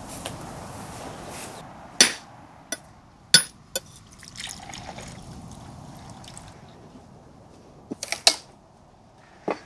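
Heavy kitchen knife striking the hard shell of a mature coconut in sharp knocks to crack it open: about four between two and four seconds in, a quick cluster near eight seconds and one more near the end. Between the knocks the coconut water trickles into a drinking glass.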